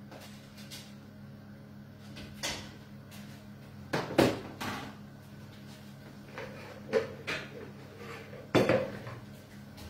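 Kitchenware clattering at the sink: a plastic tray and utensils knocked against the counter and sink, with about eight sharp knocks, the loudest about four seconds in and again near the end, over a steady low hum.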